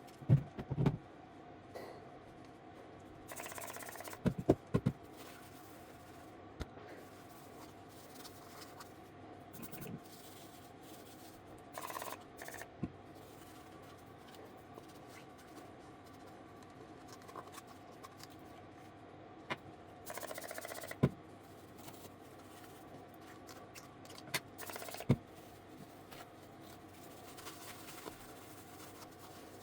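Trigger spray bottle giving a few short hissing sprays, mixed with knocks and clunks of parts being handled, over a steady hum.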